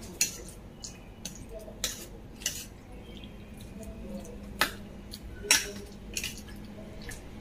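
A metal spoon stirring pork ribs in a sticky marinade in a stainless steel bowl, clinking sharply against the bowl's rim and sides about six times at irregular intervals.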